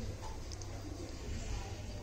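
Quiet kitchen room tone with a low steady hum and no distinct events.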